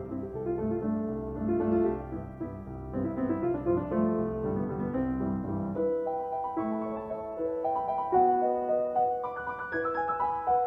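Piano music: held notes moving step by step, with lower chords through the first half, then thinning to a higher melody about six seconds in.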